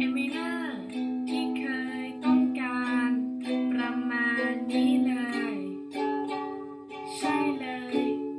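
Ukulele strummed in a down-down-up-up-down pattern, one bar per chord, with a woman singing the melody over it; the chord changes about five seconds in.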